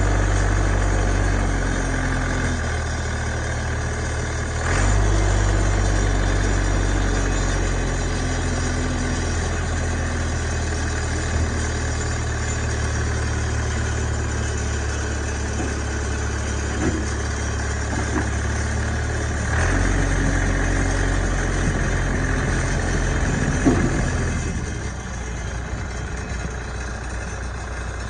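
New Holland 555E backhoe loader's diesel engine idling with a steady low hum. The hum steps up about five seconds in and falls back near the end, with a few faint knocks along the way.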